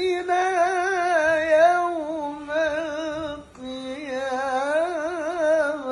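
Qur'an recitation (tilawah) by a male qari in the melodic style: long held notes decorated with rapid wavering ornaments, two phrases separated by a short pause about three and a half seconds in.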